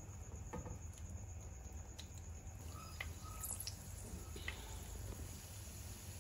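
Hot oil sizzling faintly in a karahi as stuffed dough parcels are slipped in one after another and start to deep-fry, with a few scattered light clicks and pops.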